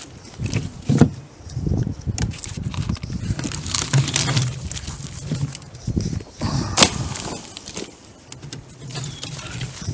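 Fallen birch logs and branches being handled and tossed from a cart onto a brush pile: a series of sharp knocks and thuds of wood, the loudest about seven seconds in, with rustling and scraping of twigs between them.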